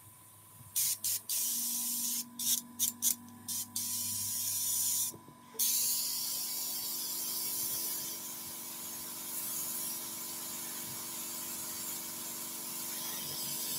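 Spraycraft SP50 suction-feed airbrush spraying grey paint freehand: a few short puffs of hiss, then a steady hiss of air and paint with a brief break about five seconds in.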